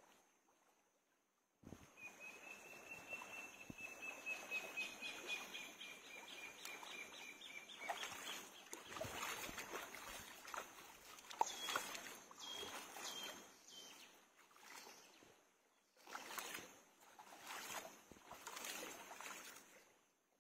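Shallow stream water splashing and trickling as someone sitting in it scoops and rubs water over her legs, in uneven bursts with short lulls. A thin, steady high tone holds for about six seconds, starting about two seconds in.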